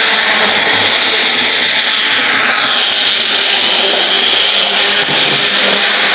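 Model railway train running on the track, a steady loud whirring of its electric motor and wheels on the rails. The pitch drops slightly about two and a half seconds in as the train passes close by.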